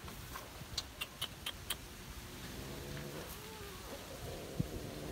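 Faint outdoor ambience with a quick run of short high chirps about a second in, then a faint drawn-out call in the middle, from distant birds.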